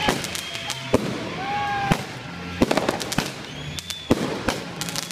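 Firecrackers going off in many sharp, irregular cracks over the steady hiss of fire extinguishers being sprayed, with a few short whistling tones.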